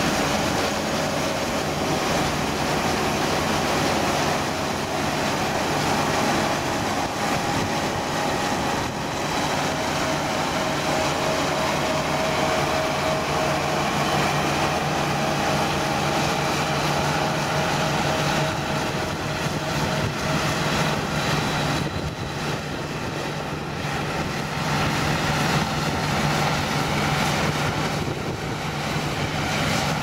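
New Holland 8060 combine harvester running as it harvests standing grain: a steady machine drone with a higher whine over it that drops away about two-thirds of the way through.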